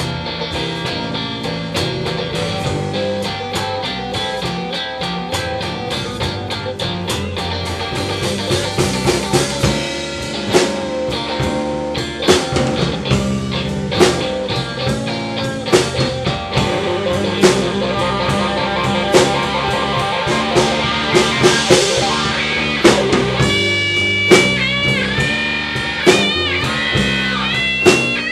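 Live slow blues on electric and acoustic guitars with drums. The beat grows harder from about a third of the way in, and near the end the electric guitar plays high, bent lead notes.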